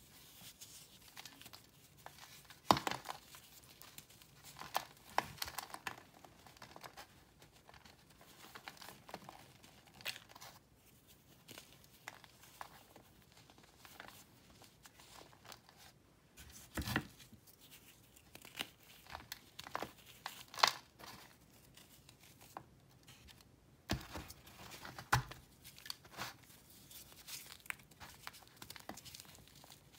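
Hands breaking and crumbling a dry, crunchy pressed-powder block: irregular crisp crunching and crackling. Louder snaps come now and then as chunks break off, the loudest about 3, 17, 21 and 24 seconds in.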